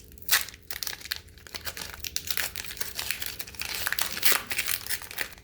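Foil Pokémon TCG booster pack being crinkled and torn open, a dense run of sharp crackles; its glued seal is tight.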